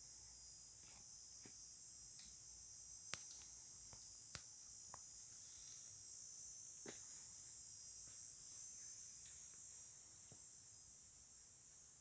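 Faint, steady high-pitched insect chorus, with a few short sharp clicks, the loudest about three seconds in.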